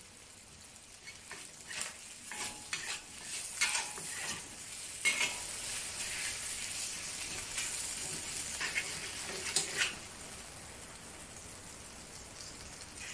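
Chicken thigh pieces sizzling in hot oil in a cast iron wok, with a metal spatula scraping and knocking against the wok as they are turned. The sizzle builds after about a second and eases off near the end.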